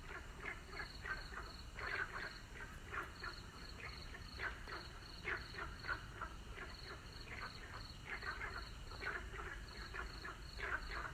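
A chorus of frogs croaking: many short calls overlapping irregularly. Behind them, a high insect chirp pulses evenly, several times a second.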